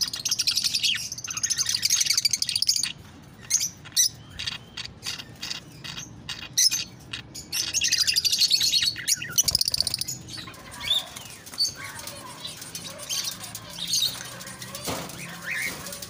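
Small parrots in an aviary (cockatiels, lovebirds and budgerigars) chattering and chirping. Dense bursts of rapid, high chatter come at the start and again about halfway through, with scattered single calls in between and toward the end.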